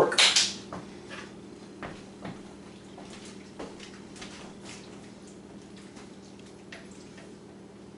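Faint, scattered clicks and light taps of kitchen utensils being handled at a slow cooker, over a steady low hum. A brief, louder rustling burst comes right at the start.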